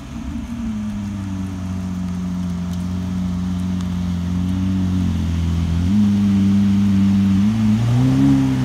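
Lamborghini Aventador's 6.5-litre V12 running at low revs as the car creeps slowly past, growing louder as it comes near. The engine note steps up slightly about six seconds in and rises and falls in a short light blip near the end.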